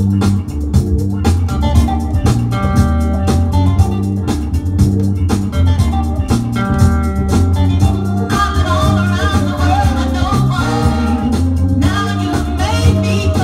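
A 7-inch vinyl single playing on a turntable: a song with bass, guitar and drums, and a singer's voice coming in about eight seconds in.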